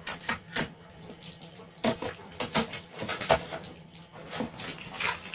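Irregular light clicks and knocks from Traxxas X-Maxx spare parts and their packaging being handled during unboxing.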